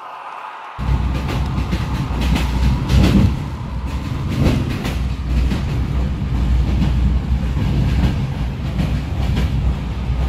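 A train passing: a heavy low rumble with the clickety-clack of wheels over rail joints. It starts abruptly about a second in.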